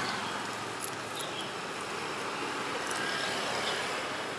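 Steady street background noise with traffic, with a few faint short ticks.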